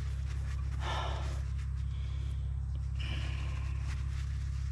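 Steady low machine hum with a fast, even pulse, and two short breathy hisses, one about a second in and one about three seconds in.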